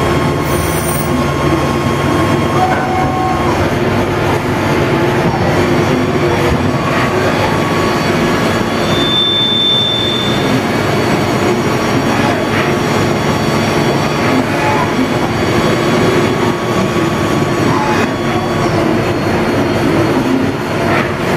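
A 1995 Traub TNC 65 CNC lathe running a machining cycle with coolant flooding the work. It makes steady machine and spray noise with a low hum, and a brief high whine about halfway through.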